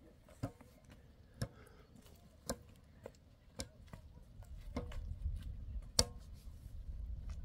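A series of sharp knocks, roughly one a second and unevenly spaced, with a low rumble building from about halfway through.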